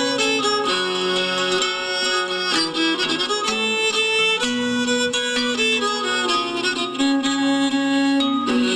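Ukrainian folk trio of fiddle, kobza and wooden pipe playing an instrumental melody, with bowed and blown lines over plucked lute strings.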